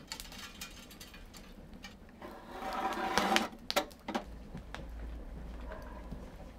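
Light clicks and a soft metal scrape from handling a portable pellet pizza oven, its burner tray and sliding vent lever, with a low steady hum setting in a little past the middle.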